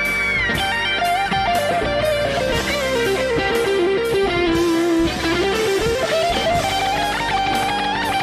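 Background rock music led by an electric guitar playing a melody, with bent notes near the start and a low held note around the middle, over a steady beat.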